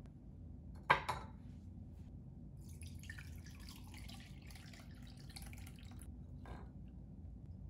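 A single sharp clink about a second in as the wire mesh strainer and glass measuring cup are set down. Then, for about three and a half seconds, beef broth is poured from a pot through the strainer into the cup, splashing and trickling, with a light tap near the end.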